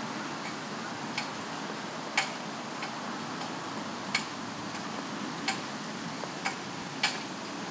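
A series of sharp ticks, unevenly spaced at roughly one a second, over a steady hiss. The loudest ticks come about two seconds in and near the end.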